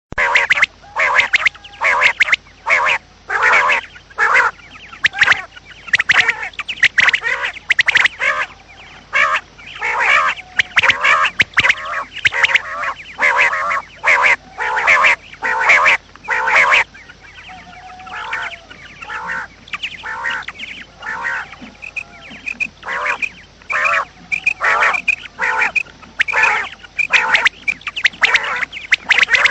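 Common quail calling: short calls repeated in quick runs, a few a second, softer for several seconds past the middle.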